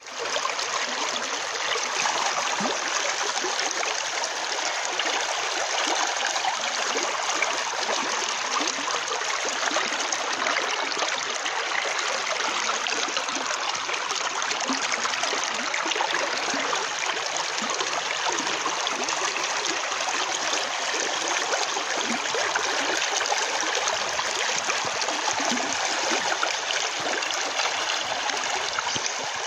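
Shallow stream flowing over a stony bed: a steady rush of running water.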